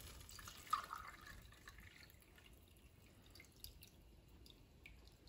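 Water trickling and dripping faintly as it is poured from a glass bowl of soaked rice into a small steel tumbler, fading out after about two seconds into a few scattered drips.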